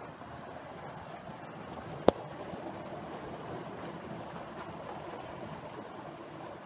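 Two 7mm-scale model Somerset & Dorset 7F 2-8-0 locomotives running double-headed with a train of coaches: a steady rumble of wheels and motors on the track, with one sharp click about two seconds in.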